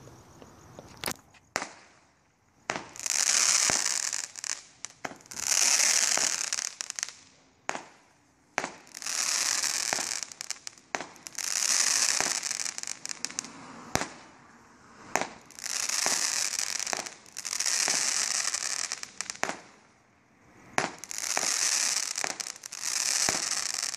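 Fisherman Fireworks' Last Revenge, a 25-shot 200-gram cake, firing shot after shot: each sharp launch pop is followed by a second or two of dense crackling from the crackling-willow tails and breaks. A new shot comes about every two to three seconds.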